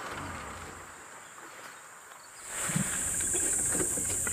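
Insects droning at a steady high pitch, coming in suddenly about halfway through over a quiet background.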